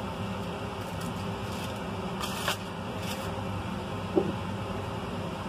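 Steady low background hum, with a short rustle of aluminium foil about two seconds in and a fainter one a little later, as sauced pork ribs are turned with tongs and brushed.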